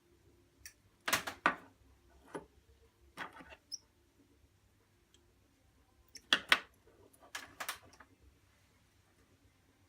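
Short metallic clicks and scrapes of pliers bending orthodontic clasp wire, coming in small clusters about a second in and again around six to eight seconds in.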